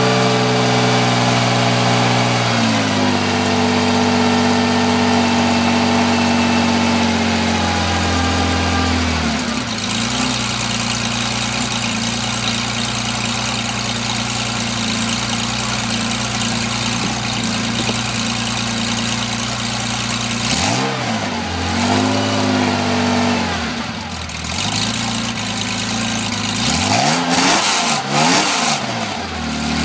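1974 Porsche 911's air-cooled flat-six running through a stock '74 exhaust with custom 2.5-inch dual tailpipes. The idle steps down twice in the first ten seconds and settles. The engine is then blipped, a couple of revs about two-thirds of the way through and a quick series of revs near the end.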